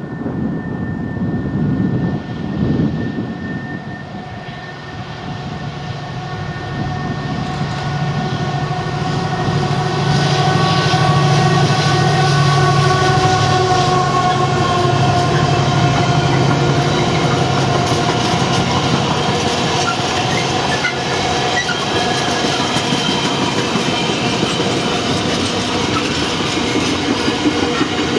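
Colas Rail Class 70 diesel-electric locomotive hauling a container freight train, its engine note rising as it approaches and loudest about ten to fifteen seconds in as it passes. The container wagons then roll by in a steady rush of wheel and rail noise.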